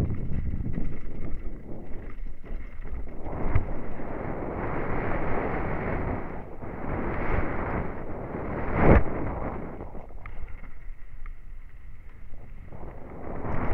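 Downhill mountain bike descending a loose gravel and rock trail, heard from a helmet-mounted camera: wind rushing over the microphone and tyres rattling over stone. A sharp knock about nine seconds in is the loudest moment.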